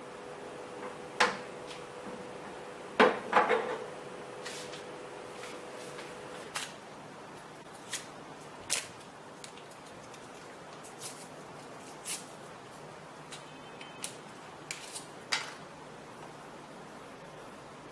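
Sharp, scattered clicks and knocks of small hard plastic parts being handled and set down on a work surface, with the loudest cluster about three seconds in. A steady hum runs under them for the first six seconds or so and then stops.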